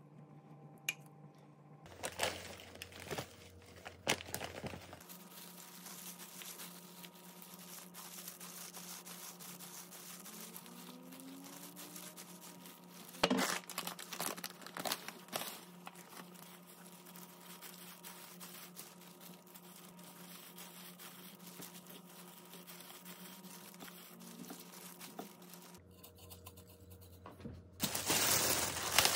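Food handling at a kitchen counter: a spatula clicking and scraping in a bowl of rice, then a packet of seasoned laver flakes rustling as it is shaken out. Near the end a thin plastic carrier bag crinkles loudly as it is pulled off a takeout container.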